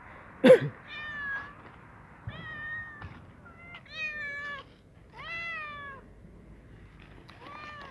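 Ginger cat meowing repeatedly, five or six drawn-out meows a second or so apart. A loud sharp knock comes about half a second in, the loudest sound here.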